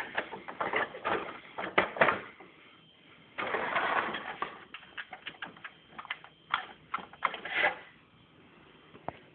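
Plastic toy van clattering and clicking as it is handled and moved about, in short bursts of rattle and sharp clicks that die down near the end.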